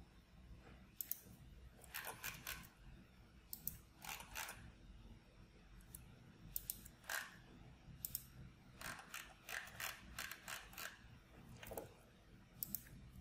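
Faint, irregular clicking of a computer mouse and keyboard, about fifteen scattered clicks, some in quick pairs.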